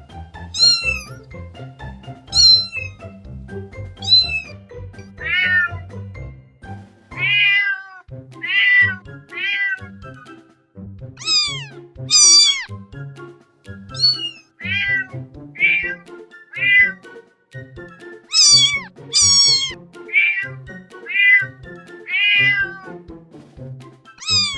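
Domestic cat meowing over and over, about one meow a second, each call short and falling in pitch, with background music underneath.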